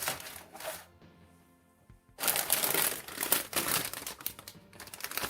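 Plastic crinkling and rustling as model kit runners are handled in their plastic bags: a short burst at the start, then a longer stretch of crackling from about two seconds in.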